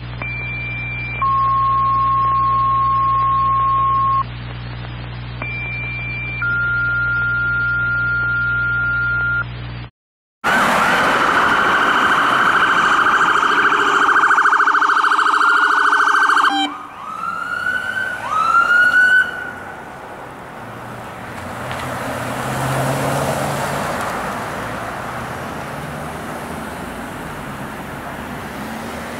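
Two pairs of two-tone paging alert tones, each a short high tone followed by a longer lower one, over a low hum. After a short break an emergency vehicle's electronic siren sounds a steady high tone for several seconds, then switches to fast rising yelps. Road traffic noise follows as the vehicles pass.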